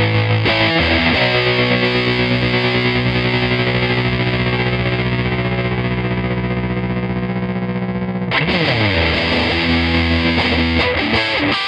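Distorted electric guitars played through an EarthQuaker Devices Hummingbird tremolo pedal. A held chord is chopped into a fast, even pulse, and about eight seconds in a note slides down in pitch into a new chord.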